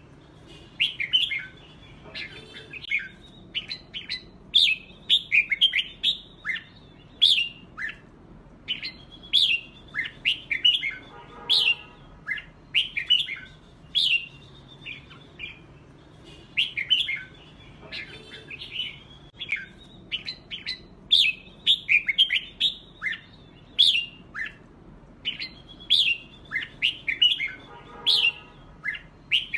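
Red-whiskered bulbuls singing competitively (fight song): short, bright whistled phrases and chirps come in quick clusters with brief pauses between them.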